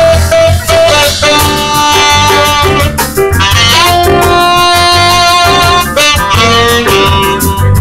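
Live jazz band: a trumpet plays long held notes over a drum kit and low bass notes.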